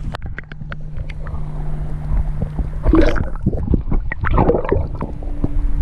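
Water gurgling and splashing around a camera held at and just under the surface, with two louder splashy bursts about three and four and a half seconds in. A low steady hum runs underneath.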